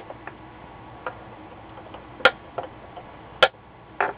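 A few sharp, irregularly spaced clicks and taps of small hand tools and parts being handled on a workbench, the two loudest about two and three and a half seconds in.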